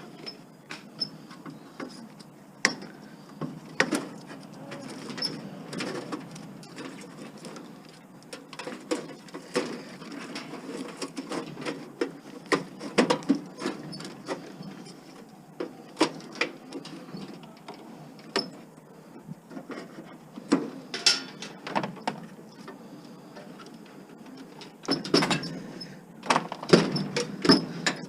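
Irregular clicks, knocks and light metal clatter of hand work on a scrap appliance as its wiring is pulled and cut out, with a busier run of knocks near the end.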